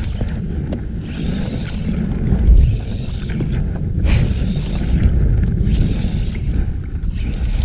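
Wind buffeting the microphone in a loud, uneven low rumble, with a brief sharp crackle about four seconds in.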